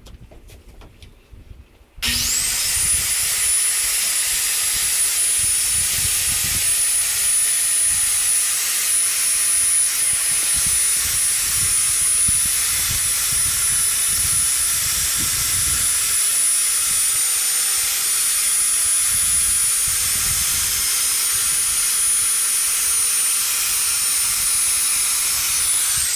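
A corded power saw starts about two seconds in, its motor whining quickly up to a steady high pitch and running for over twenty seconds as it cuts along the edge of a screen door. The pitch starts to wind down at the very end as the saw is switched off.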